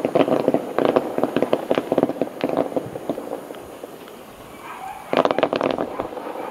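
Fireworks crackling: a dense run of rapid pops that thins out and fades over the first few seconds, then a fresh loud burst of crackling about five seconds in.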